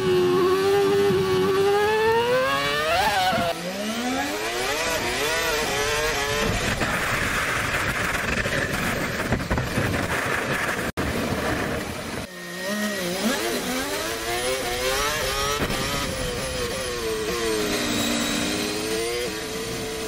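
Formula One turbo V6 hybrid engines heard from the onboard camera. The engine pitch climbs and drops sharply at each upshift. In the middle stretch the engine is mostly hidden under rushing wind and tyre noise. Just after halfway the sound cuts out for a moment and switches to another car's engine, which rises and falls again through the gears.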